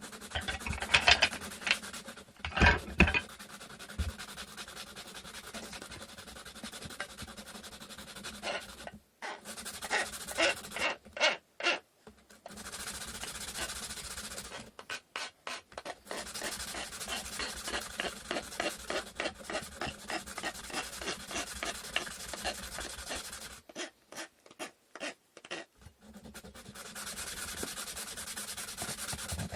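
Wood being sanded by hand: fast back-and-forth rubbing strokes, about four a second, in several runs broken by short pauses.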